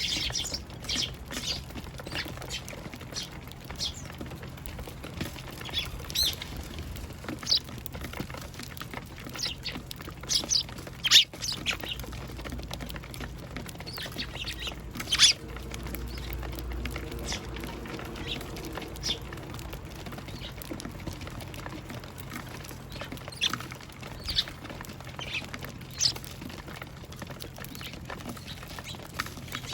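Eurasian tree sparrows chirping at a feeder: scattered short, high chirps, with a few sharper taps. A faint low rumble runs in the background for a few seconds midway.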